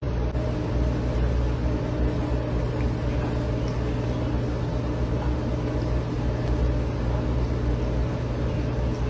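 A steady low mechanical hum under an even hiss, unchanging throughout, starting suddenly.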